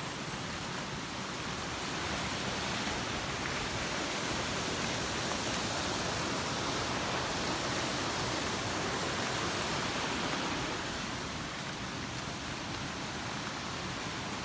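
Steady rush of a river flowing over bare rock slabs, an even noise that swells a little for the middle stretch and eases off about ten seconds in.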